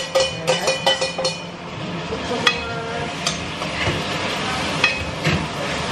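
A metal spoon clinks rapidly against a stainless steel pot for about the first second and a half. Then a steady frying sizzle carries on, with a few single sharp clinks of the spoon.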